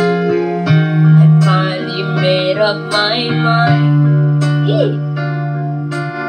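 A woman singing into a microphone over guitar music with a steady strum.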